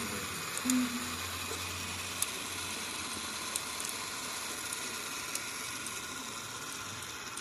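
Homemade PET-bottle strip-cutting machine running: a steady hiss as the plastic strip is drawn through the cutter, with a low hum in the first couple of seconds and a few faint ticks.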